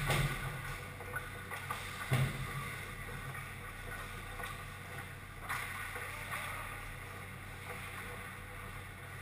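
Ice hockey play near the goal: skates scraping the ice and sticks clattering, with two heavy knocks, one at the start and one about two seconds in, over a steady low hum of the rink.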